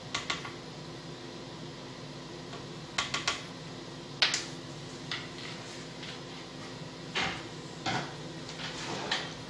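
Scattered light clinks and knocks of kitchen utensils and bottles being handled and set down, including three quick clicks about three seconds in and a sharper knock just after. A steady low hum sits underneath.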